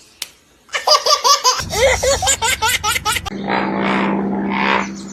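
A baby laughing in quick repeated bursts, several a second, then giving way about three seconds in to a steady low hum with noise over it.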